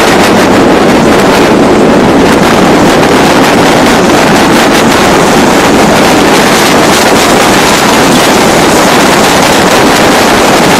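Wind buffeting the microphone in a steady loud roar, mixed with water rushing and spraying past the hulls of a 30-foot Shuttleworth trimaran sailing fast.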